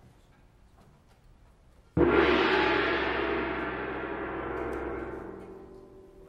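A single strike on a metal percussion instrument about two seconds in, ringing with many overtones and fading out over about four seconds.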